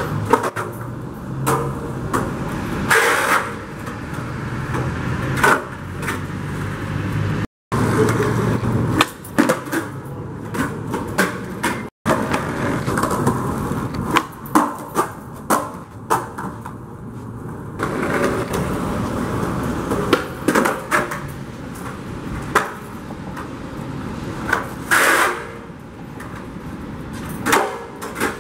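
Skateboard wheels rolling over wet concrete, broken again and again by sharp tail pops, board clacks and landing slaps as flip tricks are tried. The sound drops out twice, briefly, where one clip gives way to the next.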